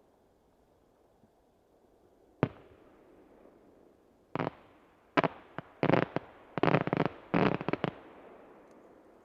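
Aerial firework shells bursting: one sharp bang about two and a half seconds in, then a rapid string of about ten bangs, each trailing off in a fading echo.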